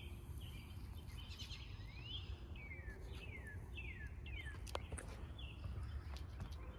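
Small birds chirping: a run of short, quick falling chirps and one rising chirp, over a low, steady rumble of background noise.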